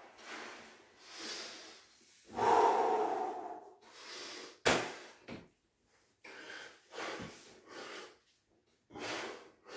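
A man's heavy, rapid breathing, hard exhales and gasping inhales about once a second, as he is winded from burpees with push-ups. The longest and loudest breath comes about two and a half seconds in, with a brief sharp sound a little after the middle.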